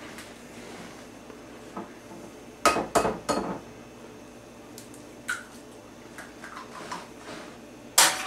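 Eggs being knocked against the rim of a mixing bowl to crack them: a quick cluster of sharp taps about three seconds in, a lighter tap a couple of seconds later, and a loud knock near the end.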